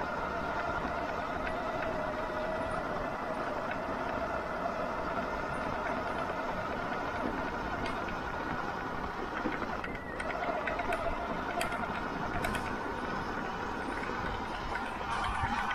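Sur-Ron electric dirt bike being ridden: a steady whine from its electric motor and drive, over low wind rumble on the microphone. The whine briefly drops about ten seconds in, then picks up again.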